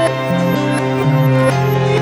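Soft background music: an instrumental passage of held notes changing every half second or so, with no singing.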